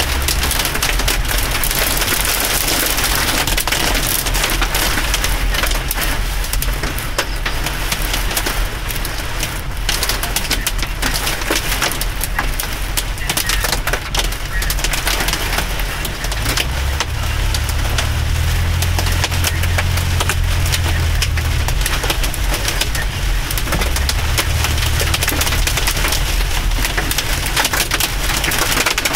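Hail and heavy rain drumming hard and without let-up on a car's roof and windshield, heard from inside the cabin as a dense clatter of countless small hits. A low hum comes in for several seconds past the middle.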